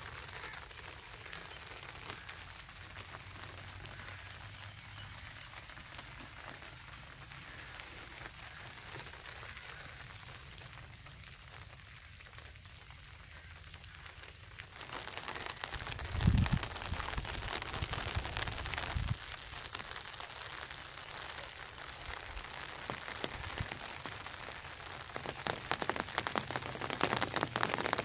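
Light rain pattering steadily on leaves and crops, growing louder about halfway through. A few brief low rumbles come just after the rain picks up.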